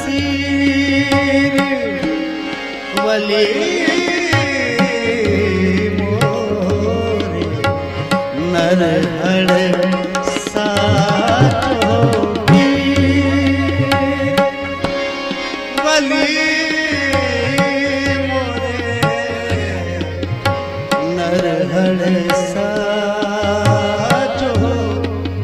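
Qawwali music: a wavering solo voice sings over tabla drumming and steady held accompaniment tones.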